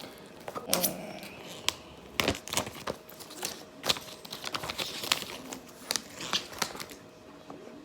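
Packaging being handled and unwrapped: plastic crinkling and rustling, with scattered sharp clicks and taps.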